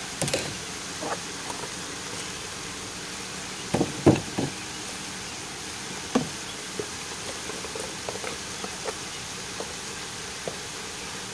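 Sliced squash sizzling softly in a nonstick pan: a steady hiss with scattered small crackles. A few louder knocks come about four seconds in.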